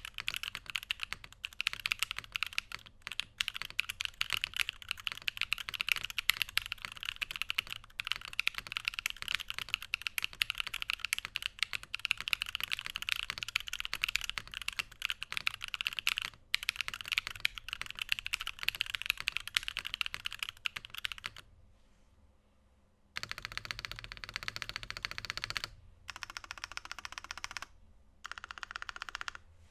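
Typing on a GrayStudio Space65 Cyber Voyager keyboard with stock Feker Holy Panda tactile switches, a top-mounted carbon fibre plate and PBT keycaps. Fast, continuous keystrokes stop for about two seconds near the end, then return in three shorter bursts.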